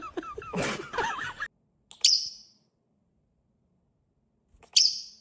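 Parrot chattering with a wavering pitch, then two short, shrill squawks, one about two seconds in and one near the end.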